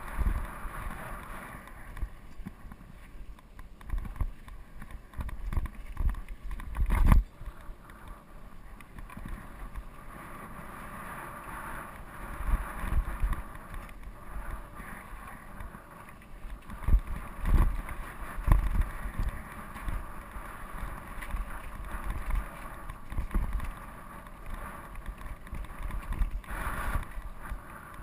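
Steel hardtail 29er mountain bike rolling over a rough dirt singletrack, with wind on the microphone. Irregular thumps and rattles come as it rides over ruts and rocks, the heaviest about seven seconds in and again around seventeen to nineteen seconds.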